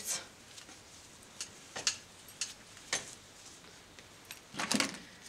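Several light, scattered clicks and taps of hair clips and grips being handled and fastened in a mannequin head's hair, with a longer rustle of handling near the end.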